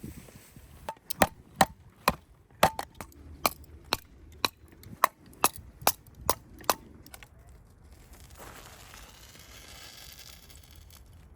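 About a dozen sharp, irregular chopping strikes on wood, then a soft steady hiss for the last few seconds.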